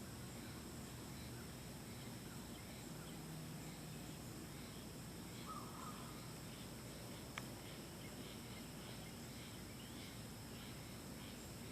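Faint outdoor background with a steady hiss and soft, regularly repeating high chirps like insects. There is a brief call about halfway through and a single sharp click a little later.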